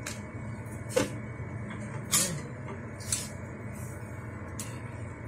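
Several sharp clicks and knocks, irregularly spaced about a second apart, as cooked crabs are handled in a steel pot, over a steady low hum.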